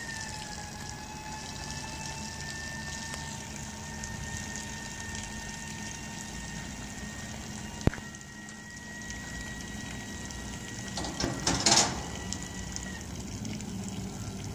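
Folding hand rail on top of a tank truck being raised by its powered drive: a steady whine runs until about a second and a half before the end and then stops. There is one sharp click about halfway and a short, loud burst of hissing noise shortly before the whine stops, over a low steady hum.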